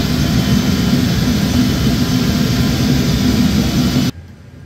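Loud, steady mechanical noise with a strong low hum. It cuts off suddenly about four seconds in, leaving quiet room tone.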